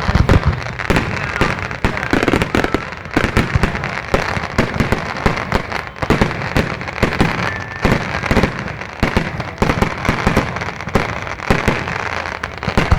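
Fireworks display going off: a dense, rapid run of bangs and crackling, with one heavy bang at the very start.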